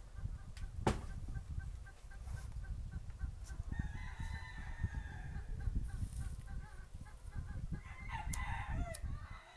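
A rooster crowing and chickens clucking, over a low, uneven rumble. There is a sharp knock about a second in, and a rustle of dry wood shavings near the end.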